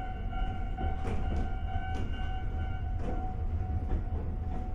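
Inside an ex-Tokyu 7000-series electric railcar running along the line: a steady low rumble with irregular sharp clicks of the wheels over rail joints and a steady whine.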